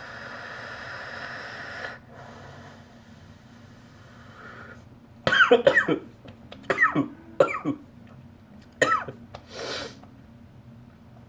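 A man coughs several times in a row, hacking after a vape hit that spat e-liquid into his throat. Before the coughing there is a breathy hiss of about two seconds.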